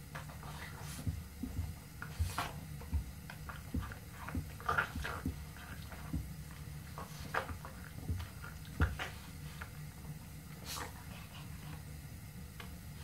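Red Boston terrier hopping and shuffling on its hind legs on a rug while begging for a treat: scattered soft thumps and clicks, irregular, over a steady low hum.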